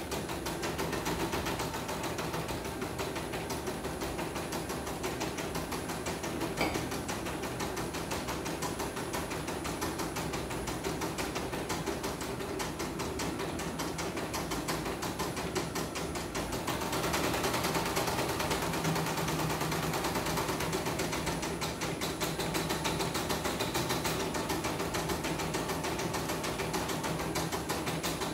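Portable computerized embroidery machine stitching, its needle mechanism running in a rapid, even chatter of stitches, a test run after the bobbin case has been replaced. The chatter gets a little louder and brighter about two-thirds of the way through.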